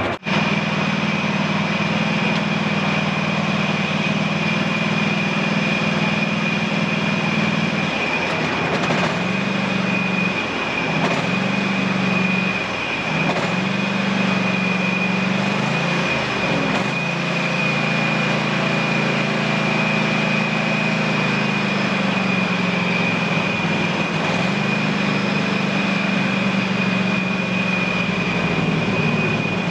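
Husqvarna TS348D lawn tractor engine running steadily. Its pitch sags briefly several times in the middle stretch, and a steady high whine runs over it.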